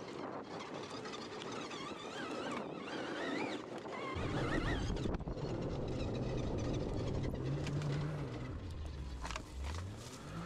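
Electric ATV on the move off-road. About four seconds in, a louder low-pitched motor and drivetrain sound starts, rising and falling in pitch as the speed changes.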